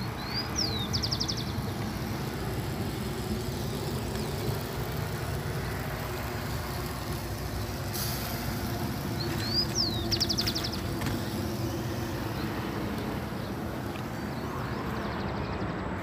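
A steady low rumble with a bird calling twice, each call a short rising whistle followed by a quick rattle.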